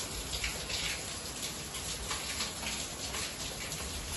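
Heavy rain falling, with water dripping and splashing off the edge of a clay-tile roof: many small drop splashes over a steady hiss, with a low rumble underneath.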